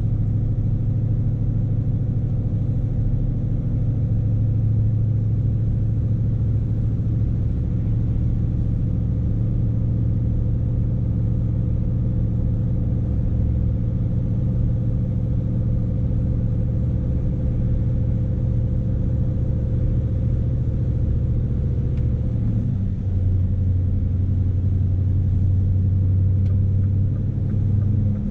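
Scania S520 truck's 16-litre V8 diesel engine running steadily while the fully laden truck is driven, a low drone heard from inside the cab. About 23 seconds in the engine note steps down to a lower pitch and holds there.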